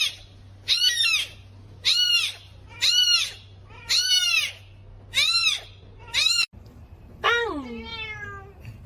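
A cat meowing over and over: about eight short, high meows roughly one a second, then one longer meow that falls in pitch near the end.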